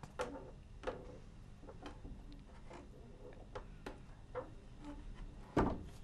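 Quiet, irregular taps and clicks of someone creeping through a wooden doorway, with one louder knock near the end.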